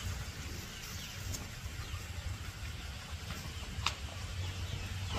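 Outdoor ambience with a steady low rumble, faint bird calls and a single sharp click about four seconds in.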